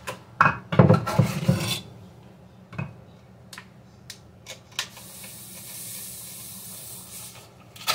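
Granulated sugar poured from a measuring cup into a plastic juice jug, a steady soft hiss of grains running in from about five seconds in. In the first two seconds there is a clatter of knocks as the cup and jug are handled.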